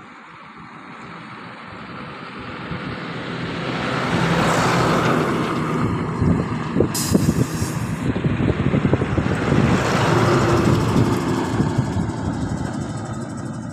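A motor vehicle engine running close by, growing louder over the first few seconds and then staying loud, with a short hiss about seven seconds in.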